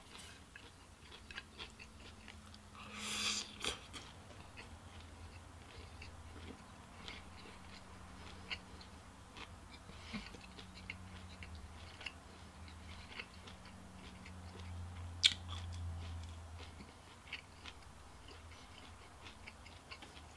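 Close-miked chewing of food, with wet mouth clicks scattered throughout. There is a short, louder noisy burst about three seconds in and a single sharp click a little past halfway. A faint low hum runs underneath.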